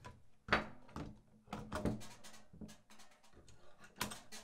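An AR-15-style rifle being laid into a steel gun rack and pressed down into its gun lock: a string of knocks and clunks of the rifle against the metal rack. The loudest comes about half a second in and another near the end.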